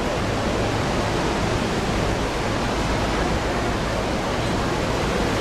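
Niagara Falls' falling water, a loud steady rushing roar with no breaks.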